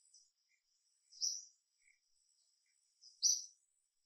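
A bird chirping outdoors, two short high calls about two seconds apart, over a faint steady high-pitched whine.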